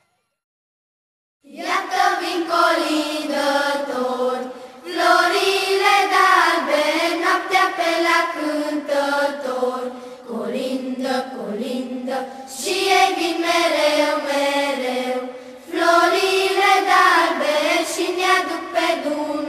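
A group of children singing a Romanian colindă (Christmas carol) together as one melody line, in phrases with short breaks between them. The first second and a half is silent before the singing starts.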